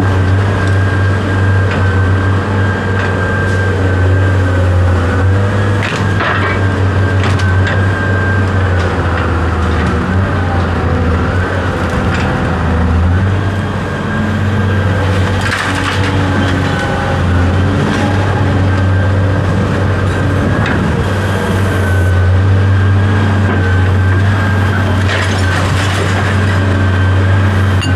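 A steady, loud mechanical drone with a low hum and a steady higher whine, like a motor running, with a few scattered metallic knocks or clanks.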